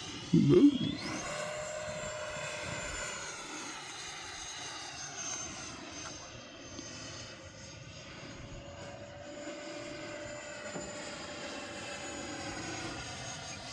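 Electric ducted-fan whine from a 3D-printed Fouga Magister RC jet in flight. It is a steady, many-toned whine whose pitch drifts slowly up and down as the model flies past. A short exclamation near the start is louder than the whine.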